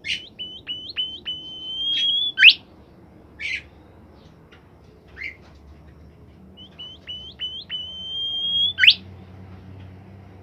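A bimoli songbird singing two repeated phrases, each a few quick clipped notes running into a long held whistle that ends in a sharp upward sweep.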